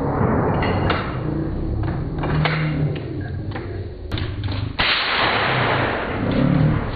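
Scattered gunshots on a firing range: several sharp reports spaced irregularly about a second apart. A rushing noise starts about five seconds in.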